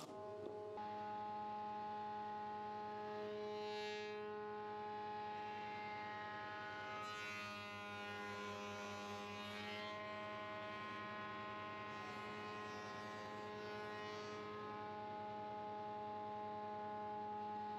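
Sedgwick spindle moulder running with a steady humming tone from the spinning cutter block. Three stretches of cutting noise, the longest about 7 to 10 seconds in, come as the post cap, held in a wooden jig, is pushed past the cutter to mould its edges.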